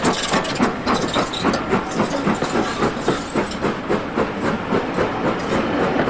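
Steam locomotive working a train, its exhaust beating evenly at about three puffs a second over a steady hiss of steam. The beats fade slightly near the end.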